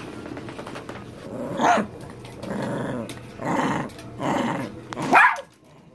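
Small shaggy dog growling in a string of about five separate growls, the last one the loudest and rising in pitch. It is a jealous, attention-seeking growl, which the owner puts down to having her back turned to the dog.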